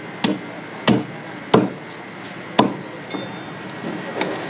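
A blade chopping down onto a wooden chopping block: four sharp chops, the first three about two-thirds of a second apart, then a fainter knock near the end.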